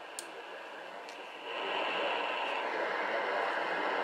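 AM radio static from the Eton Elite 750's speaker, tuned to a weak 720 kHz station, with a faint click near the start. About a second and a half in the hiss gets clearly louder as the rotatable ferrite-bar AM antenna is turned toward the station.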